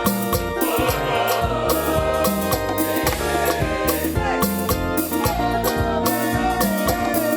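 Gospel choir singing with band accompaniment: wavering sung melody over sustained chords, with bass and a steady drum beat.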